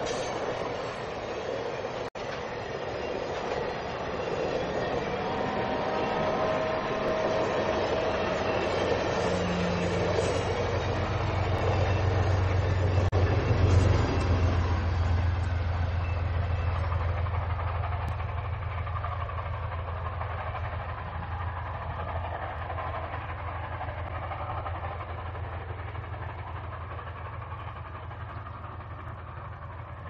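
Steam-hauled train passing on the rails, its low rumble building to its loudest about halfway through and then slowly fading as it moves away.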